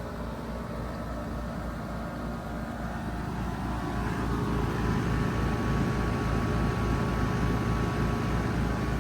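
Trane XR14 3-ton heat pump outdoor unit running with a steady mechanical hum and an even low pulsing, growing louder about four seconds in.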